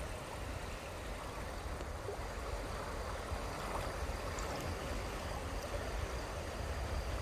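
River water flowing fast and rippling, a steady rushing noise with a low rumble beneath it.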